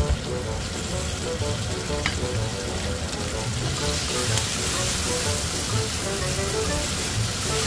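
Spicy squid stir-fry sizzling in an oiled frying pan, the sizzle getting louder about halfway through, with a couple of light clicks, over soft background music of short repeated notes.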